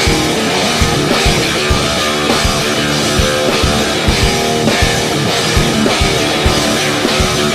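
Rock music with a drum kit and guitars, playing to a steady driving beat.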